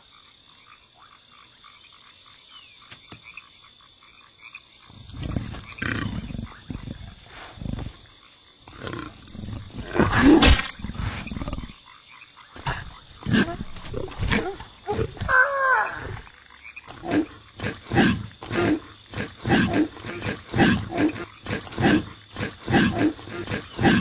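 Guttural belching and retching noises, growl-like and repeated, starting about five seconds in and settling into a run of about two a second.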